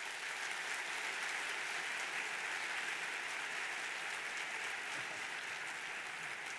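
Audience applauding steadily after a lecture, the clapping easing slightly near the end.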